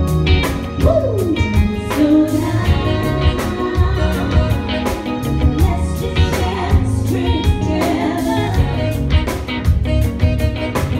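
Live band playing: drum kit, electric guitar and saxophone, with singing.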